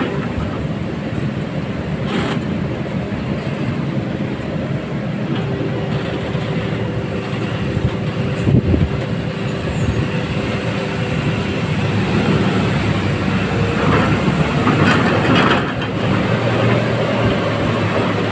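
Excavator working: its diesel engine and hydraulics run steadily under load, with a few knocks and clatters about 2, 8 and 15 seconds in.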